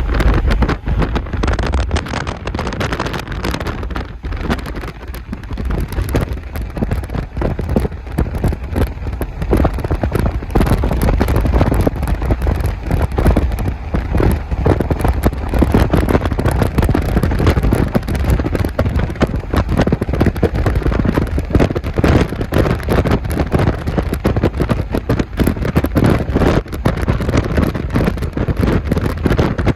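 Rocks raining down and striking nearby surfaces: a dense, continuous clatter of many small impacts over a steady low rumble.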